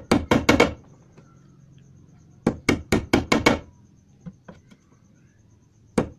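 Quick hammer taps on a homemade chisel made from a flattened nail, cutting a lock hole into a wooden wardrobe door. There is a run of about five sharp knocks at the start, a pause, another run of about six in the middle, and a new run begins at the very end.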